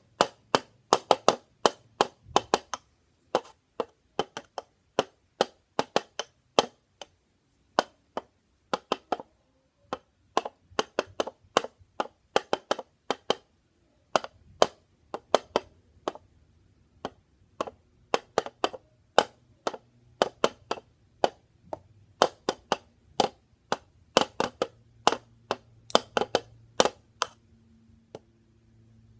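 A homemade drum struck with small flat wooden sticks, tapping a simple beat with sharp clicky strikes. The same short pattern is played over and over in quick runs, with brief pauses between runs.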